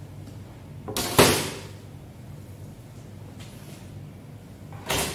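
Two hard knocks from handling a bluefin tuna loin on a wooden cutting board, one about a second in and a second, slightly weaker one near the end, over a low steady hum.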